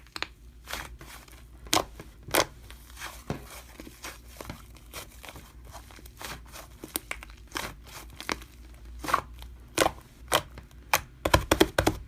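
Slime being pressed and squished by hand, giving irregular crackling pops and clicks that come quicker near the end.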